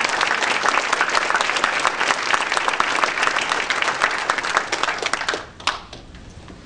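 Audience applauding, a dense patter of many hands clapping that dies away about five and a half seconds in, with one last clap just after.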